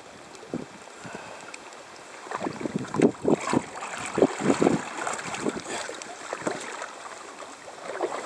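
Water splashing and dripping around a kayak and its paddle: irregular small splashes and sloshes, busiest and loudest between about two and five seconds in, with some wind on the microphone.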